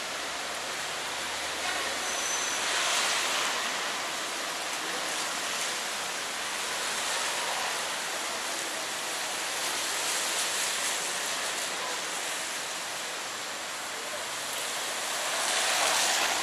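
Steady hiss of rain and traffic on a wet city street, with tyres swishing on the wet asphalt. The hiss swells about three seconds in and again near the end.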